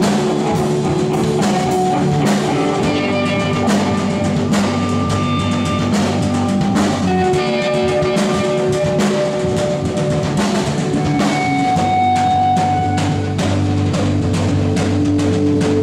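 Live rock band playing: a drum kit keeps a steady beat under sustained guitar notes.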